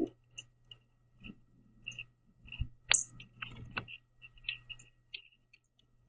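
Northern cardinals pecking and cracking sunflower seeds on a wooden platform feeder: irregular clicks and taps, with soft short chirps scattered between them.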